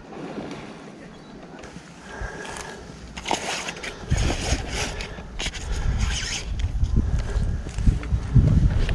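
A throwing spoon scraping and scooping wet bread groundbait in a fabric bait bag, in irregular rustling, crunching strokes that begin about two seconds in. Low rumbling bumps join from about four seconds in.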